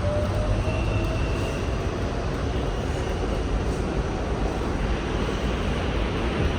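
R68 subway car running along the track, heard from on board: a steady loud rumble of wheels on rails, with a motor whine rising in pitch that fades out about a second in, and a faint brief high squeal around the same time.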